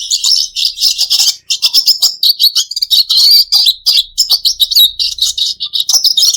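Red siskin singing: a fast, continuous twittering of high chirps and trills, with short breaks about one and a half and five seconds in.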